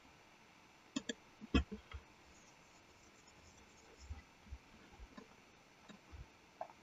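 Faint, scattered clicks of a computer mouse and keyboard: a few sharp ticks in the first two seconds and a few softer ones later on.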